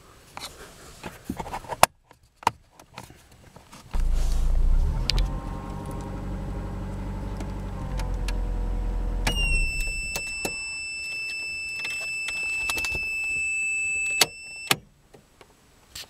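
A Renault's engine runs for about five seconds and is switched off; as it stops, a piezoelectric buzzer sounds one steady, high-pitched beep for about five seconds, warning that the headlights have been left on with the ignition off. A click sounds and the buzzer cuts off.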